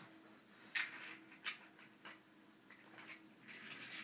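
A child's hands handling wooden toy train track and trains: a few short clicks and rustles, the two sharpest about a second in and a second and a half in, over a faint steady hum.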